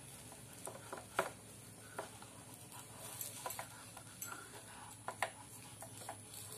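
Wooden spatula scraping and tapping against a non-stick frying pan as a soft rice-flour pancake is lifted and folded out, giving scattered soft clicks and knocks, the sharpest about a second in and about five seconds in, over a low steady hum.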